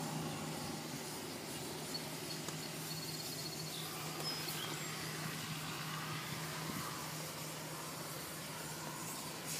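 Outdoor ambience: a steady low hum under a light background hiss, with a few faint high chirps about three to five seconds in.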